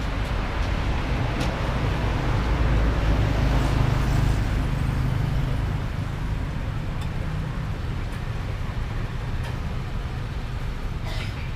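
Road traffic going by: a low rumble of passing cars that swells about three seconds in and then slowly fades, with a few faint clicks.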